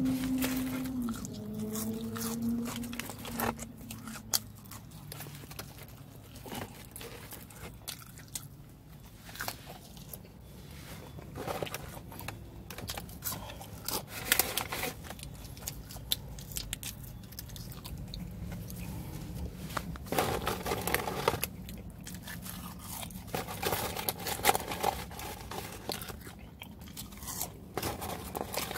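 Close-up chewing and crunching on crispy fried chicken and fries, with many short crunchy bites spread through the stretch.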